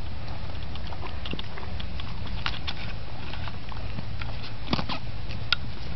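A horse biting and crunching pieces of marrow: scattered sharp crunches, loudest about halfway and near the end, over a steady low rumble.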